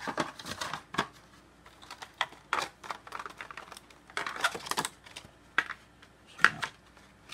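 Plastic miniatures and their packaging being handled: irregular bursts of light clicks, clacks and rattling, with a louder knock about six and a half seconds in.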